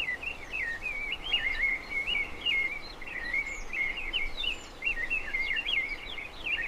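Bird song: an unbroken run of quick chirping notes that jump up and down in pitch, over a steady background hiss.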